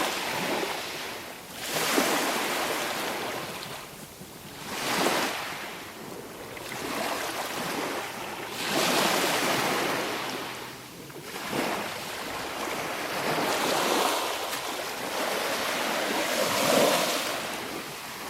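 Sea waves breaking on the shore, each wave a rush of hiss that swells and fades, one every few seconds.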